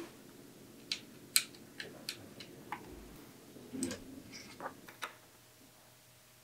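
Sharp, irregular metal clicks and taps of hands working a bicycle's front rim brake, handling the brake arm, cable and pad hardware: about nine separate clicks over the first five seconds, the loudest about a second and a half in, then it falls quiet.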